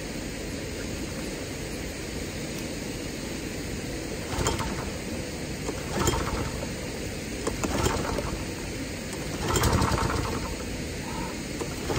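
Recoil starter of a wing mower's small petrol engine being pulled four times, about two seconds apart; the engine turns over but does not catch. It is hard to start, which the owner suspects is flooding from the mower being tilted.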